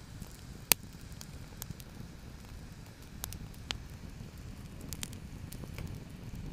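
Wood fire burning in a fire pit, crackling, with one sharp pop a little under a second in and scattered smaller snaps after it, over a low steady rumble.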